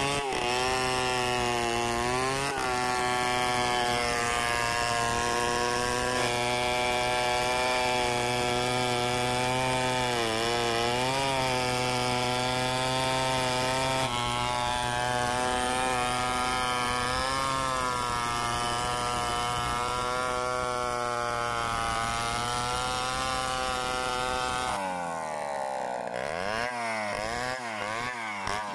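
Stihl 070 two-stroke chainsaw ripping lengthwise through a log, the engine held at a steady pitch under load with a few brief sags. Near the end the saw leaves the cut and the engine revs up and down several times.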